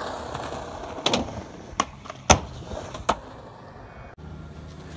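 Skateboard wheels rolling on concrete, then four sharp clacks of the board hitting the ground, roughly a second apart, the loudest a little past two seconds in.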